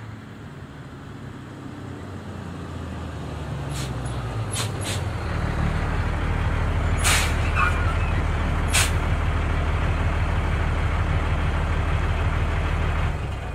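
Truck engine running and growing louder as it draws near, then holding steady, with several short air-brake hisses in the middle. The sound cuts off abruptly at the end.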